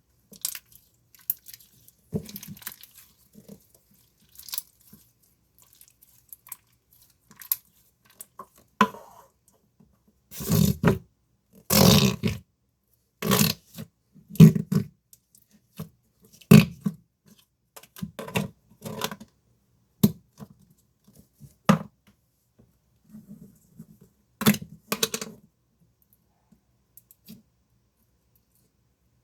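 Slime being squeezed, stretched and pressed by hand: an irregular run of short squishing noises with pauses between them, the longest and loudest a little before the middle.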